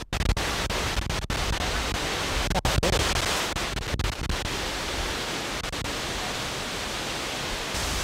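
Steady roar of rushing water from a waterfall and its rapids, a dense hiss across all pitches, briefly broken by a few momentary gaps in the first few seconds.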